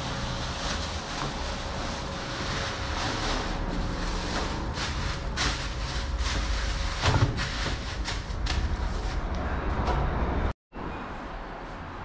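Steady road traffic noise, with a run of clicks and knocks in the middle.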